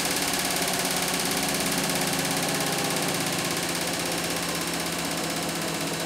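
Beko WTK104121W washing machine spinning its drum at speed: a steady motor whine and hum with no tumbling pauses.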